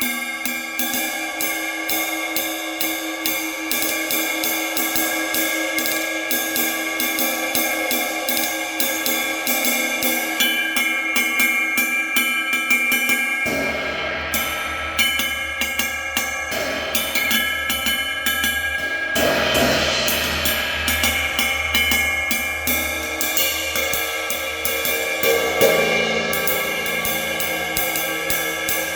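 Cymbals played with sticks in a fast, steady stream of strokes, their ringing overtones sustaining underneath. About halfway through, a low, deep sound joins in.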